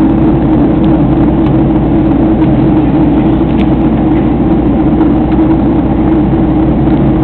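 Airplane cabin noise: the aircraft's engine drone heard from inside the cabin in flight, loud and steady.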